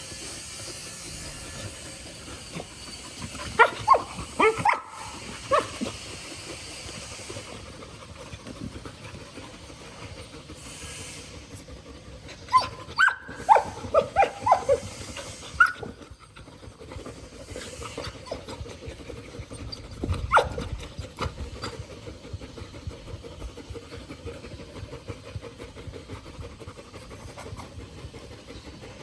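A dog giving short, high-pitched cries in three bouts: a quick run about four seconds in, a longer run around thirteen to fifteen seconds, and a single cry around twenty seconds. A steady hiss runs underneath.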